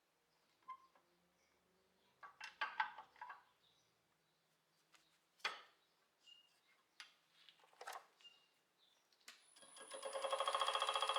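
Scattered light knocks and clicks, then, about a second and a half before the end, a steady buzzing sound made of several fixed tones fades in. It pulses very rapidly and keeps going.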